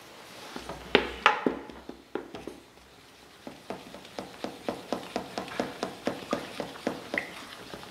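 A utensil knocking and clicking against a stainless steel mixing bowl as eggs are beaten into flour for crepe batter: a few loud knocks about a second in, then steady clicking about four times a second through the second half.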